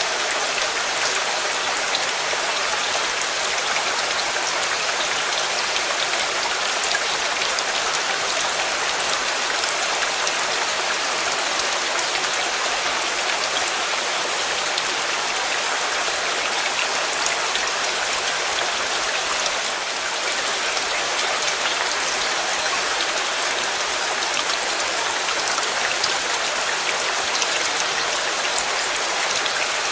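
Steady rain falling, a dense even hiss of many fine drops pattering on a surface.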